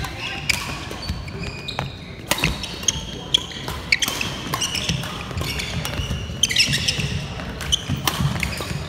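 Badminton doubles rally: rackets strike the shuttlecock in sharp cracks every second or so, while shoes squeak on the sports-hall floor and feet thud as the players move.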